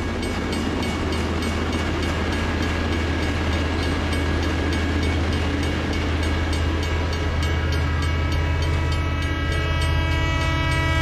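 Freight train rolling past: a steady low rumble with several held tones above it, slowly growing louder.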